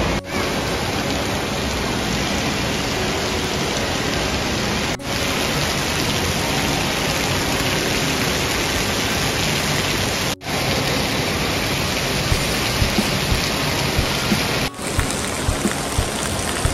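Water pouring and splashing from the spouts and sprays of an indoor water park play structure, a steady rushing hiss. It breaks off abruptly for an instant about 5, 10 and 15 seconds in, where clips are joined.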